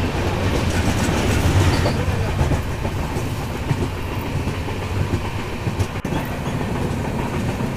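Passenger train running along the track, heard from aboard the moving coach: a steady noise of wheels on rails, a little louder in the first two seconds.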